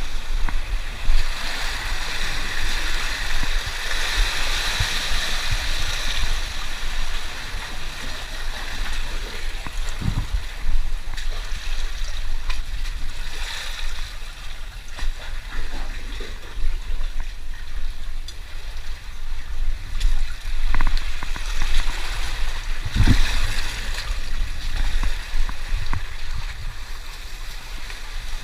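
Sea water washing and gurgling over a rock shelf, with a fluctuating low rumble throughout and two dull thumps, one about ten seconds in and one later on.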